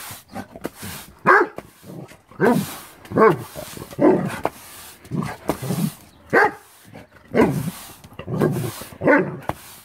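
Golden retriever barking repeatedly, about ten barks roughly a second apart.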